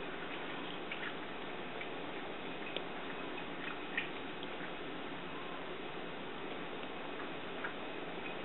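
Cat eating from a bowl: sparse, irregular little clicks of chewing over a steady hiss.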